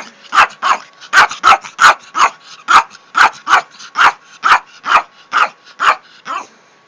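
Yorkshire terrier barking in a long, rapid run of sharp, evenly spaced barks, about two to three a second, which stops shortly before the end. It is barking at a hair styling tool that it dislikes.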